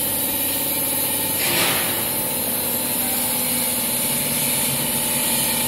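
Meltblown fabric extruder line running: a steady machine drone with several held tones. A short rushing hiss about one and a half seconds in.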